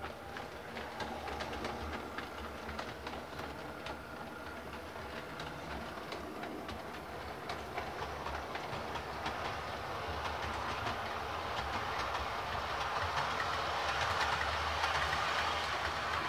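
Model railway train, a Class 33 diesel locomotive hauling coaches, running on the layout's track: a steady rumble of motor and wheels with a rapid clicking of wheels over the rail joints, growing louder over the second half.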